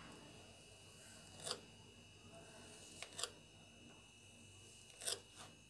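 Knife cutting a soft set fried-gram sweet into squares in a stainless steel tray, its blade tapping the tray a few times in faint short clicks.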